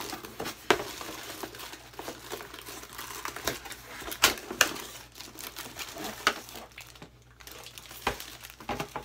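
Crinkling and tearing of packaging as a hair dryer's box is opened, with scattered sharp clicks and taps.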